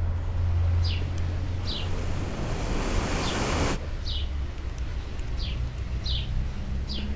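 A small bird chirping over and over, short falling chirps, over a low steady hum; a loud rushing noise swells in about two seconds in and cuts off sharply near the middle.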